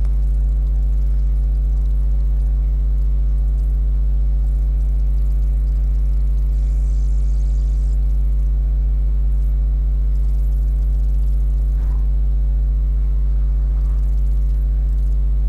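Loud, steady low electrical mains hum, with a stack of evenly spaced overtones above it.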